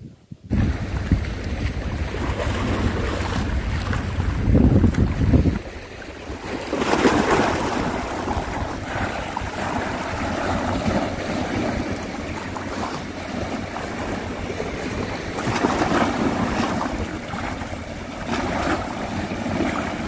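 Sea surf washing on the shore, with wind buffeting the microphone. A heavy wind rumble runs for the first five seconds or so, then a steady surf hiss swells several times.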